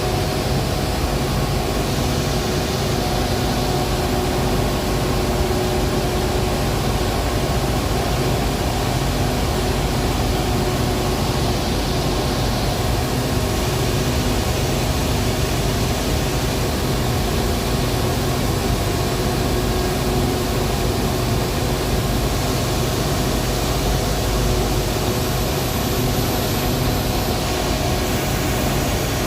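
Loud, steady industrial machinery noise: a continuous rushing din with several steady hum tones running under it, unchanging in level.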